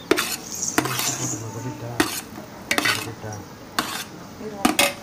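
Perforated metal ladle scraping and knocking against the side and bottom of a large metal pot while stirring fried rice, about seven strokes at uneven intervals.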